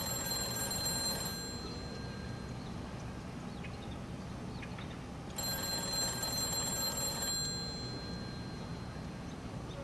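Payphone ringing with an incoming call: two rings of about two seconds each, the first ending about a second in and the second starting about five seconds in, over steady low background noise.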